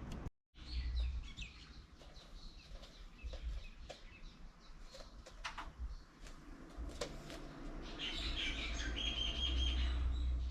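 Birds chirping, with scattered short calls and then steadier high chirping about eight seconds in, over a low rumble.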